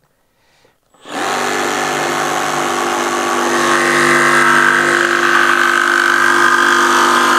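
Makita DJV184 cordless jigsaw starting up about a second in and cutting through a wooden board, a loud steady running buzz of the reciprocating blade that grows a little louder as the cut goes on.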